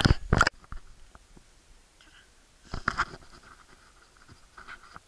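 Contact noise from a dog's furry body brushing and bumping the camera: two sharp knocks at the start, then bursts of rubbing and scratching on the microphone about three seconds in, and fainter ones near the end.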